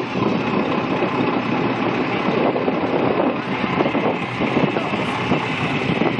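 Fire truck engine idling steadily close by, with wind buffeting the microphone and voices in the background.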